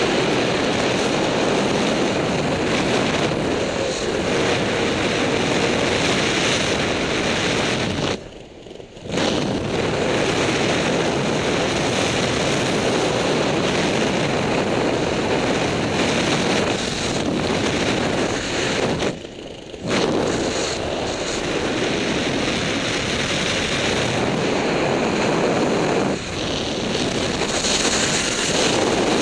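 Wind rushing over the microphone of a camera carried by a skydiver descending under a parachute: a loud, steady rush of noise that drops away briefly twice, about eight and nineteen seconds in.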